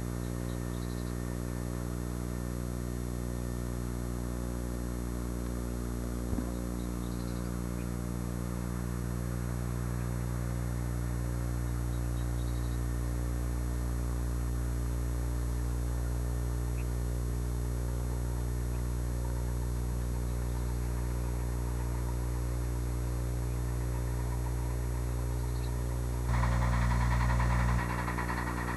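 Steady electrical mains hum, a buzz with many even overtones over tape hiss, on the sound track of an old VHS tape. It is briefly louder and noisier for about a second and a half near the end.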